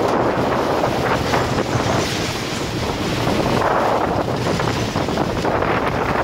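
Wind buffeting the microphone over the rumble of a TOGO stand-up roller coaster train running along its steel track, rising and falling in two swells.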